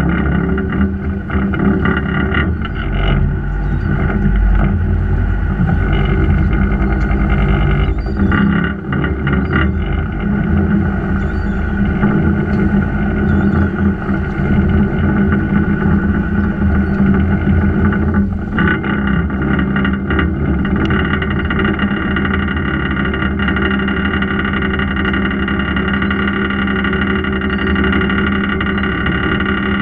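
Fishing boat's engine running with a steady drone. Its note shifts about three seconds in and settles into an even tone about two-thirds of the way through.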